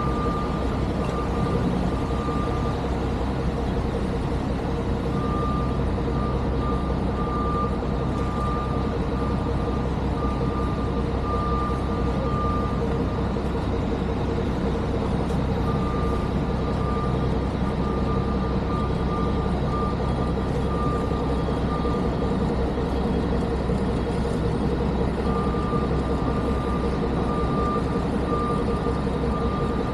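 Heavy snow-removal vehicles running with a steady engine drone and a constant whine, while a reversing alarm beeps in several runs with pauses between them.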